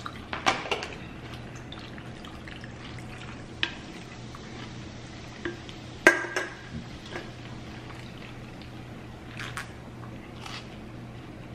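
Close-miked eating sounds: crisp bites into battered fried tilapia and chewing near the start, a sharp click from a wooden spoon scooping mashed potatoes about six seconds in, and sips from a plastic cup near the end, over a low steady hum.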